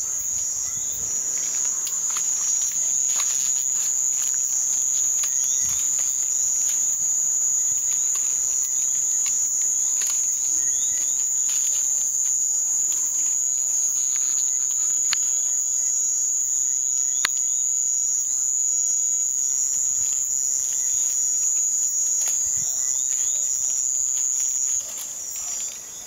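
Steady, high-pitched night chorus of insects such as crickets, a continuous shrill trill that dips briefly near the end. Scattered faint clicks and scuffles sound beneath it.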